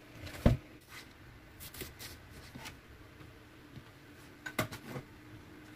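Kitchen knife and pechay leaves on a wooden cutting board: scattered sharp knocks, one strong knock about half a second in and a quick cluster of knocks near the end, with light rustling and handling of the greens between. A faint steady hum runs underneath.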